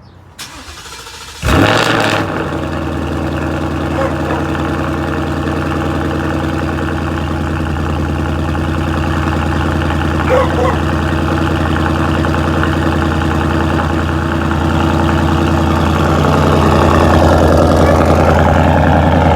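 2019 Ford Mustang GT's 5.0-litre V8 starting with a sudden loud burst about a second and a half in, then idling steadily. The idle grows a little louder near the end.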